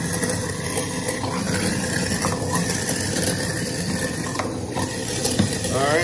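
Whirlpool garbage disposal running steadily with cold tap water pouring into it as lemon peel pieces are fed in, with a couple of sharp knocks about two and five seconds in.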